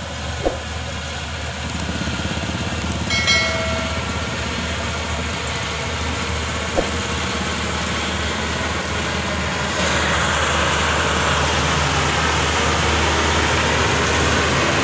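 Combine harvester's diesel engine running steadily as the machine drives across the field, growing louder about ten seconds in as it comes closer. A brief higher-pitched tone sounds about three seconds in.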